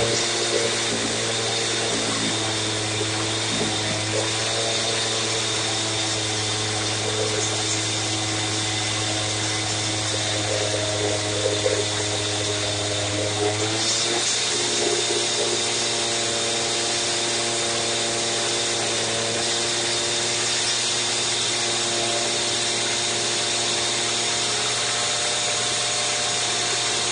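Stihl TS 760 111 cc two-stroke concrete cut-off saw running steadily at high speed, its pitch stepping up slightly about halfway through.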